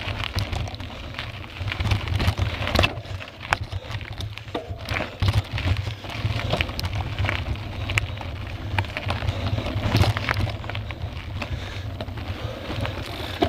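Mountain bike clattering over roots, rocks and dirt on a singletrack descent, picked up by a handlebar-mounted camera: a steady low rumble of vibration and air with many sharp knocks and rattles throughout.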